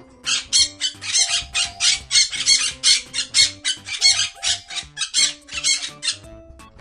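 Parrot squawking: a rapid run of short, harsh calls, about three a second, over soft background music.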